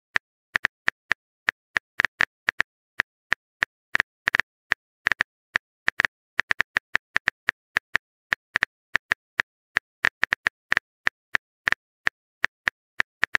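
Keyboard typing clicks: a long irregular run of short, sharp taps, about four or five a second.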